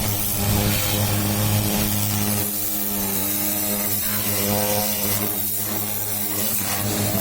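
High-pressure washer running: a steady motor hum with the hiss of the water jet over it.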